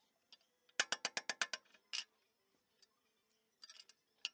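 Rapid bursts of sharp metallic clicks and taps from hand tools at a dozer-blade cylinder's clevis pin: a quick run of about eight clicks near the start, a single click in the middle, then another short flurry near the end.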